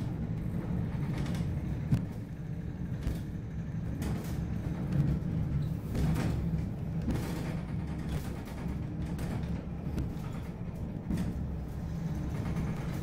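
Babbacombe Cliff Railway's cable-hauled funicular car moving along its rails: a steady low rumble with scattered creaks and clicks from the running car.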